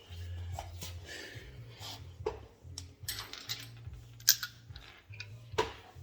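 Scattered metallic clicks, clinks and knocks of hand tools and hardware while a car wheel is refitted and tightened, with a sharp click about four seconds in and a knock shortly after, over a low intermittent hum.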